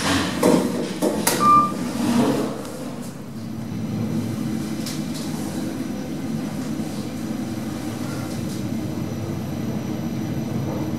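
Service lift, a third-generation KONE EcoDisc, with a few clicks and a short beep in the first two seconds, then the steady hum and rumble of the car travelling between floors.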